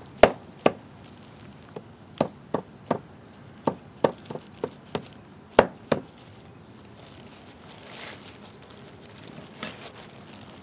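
A white mallet tapping a power steering reservoir onto a GM 3800 power steering pump to seat it on its O-ring. There are about a dozen sharp, uneven taps over the first six seconds, the hardest near their end, followed by faint handling noise.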